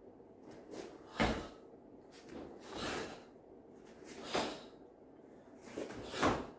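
Karate techniques thrown in a kata: about five sharp swishes and snaps from the cotton gi and bare feet on the foam mat. The loudest comes about a second in and another near the end.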